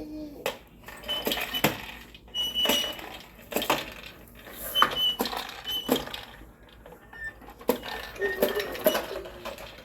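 Baby's push popper toy clattering as it is pushed along, making irregular clicks and pops with some short, high pings.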